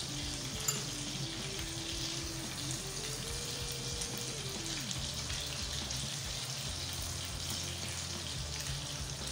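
Chicken pieces sizzling steadily in the oil of a nonstick double-sided grill pan, glazed and cooked through after about fifteen minutes. There is a single sharp click near the start.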